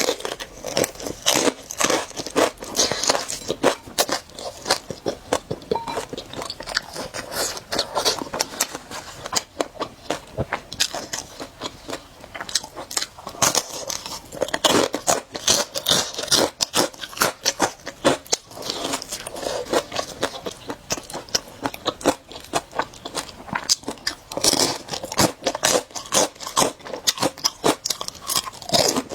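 Close-miked eating of spicy noodles with eggs: steady chewing and biting with many small wet clicks and smacks.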